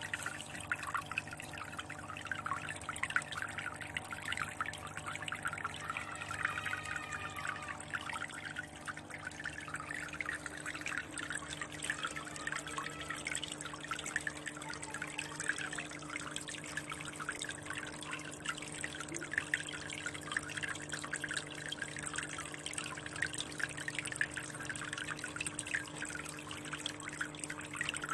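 Water trickling and splashing steadily from a spout into an aquarium, over a steady low hum.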